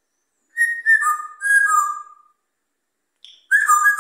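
African grey parrot whistling a tune in clear notes that step down in pitch. One phrase starts about half a second in, and a second begins near the end.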